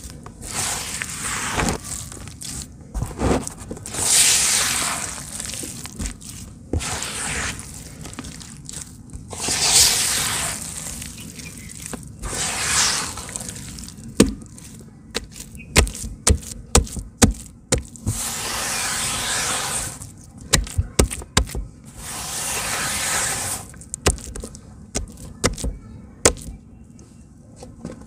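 Hands squeezing and stirring wet red dirt in a plastic bucket: squelching and slopping, with a splashy squish every few seconds. In the second half come quick runs of short, sharp, sticky pops as the mud thins to a runny slurry.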